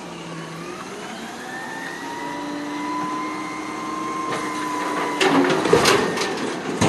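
Front-loading garbage truck revving its engine to drive the hydraulics as the forks lift a dumpster over the cab, with a whine that rises over the first few seconds and then holds. About five seconds in comes a loud clattering crash as the trash drops into the hopper, then a sharp bang near the end.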